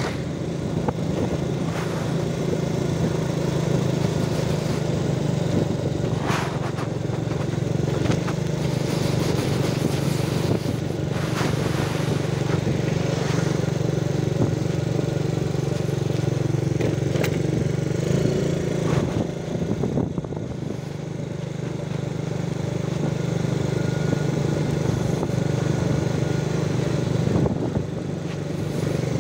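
Motorcycle engine running steadily while riding, with road and wind noise; the engine eases off briefly twice in the second half.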